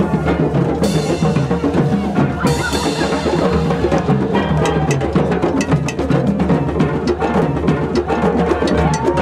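A drum circle of many djembes and other hand drums beating a fast, dense rhythm together, with a cymbal crashing twice in the first few seconds.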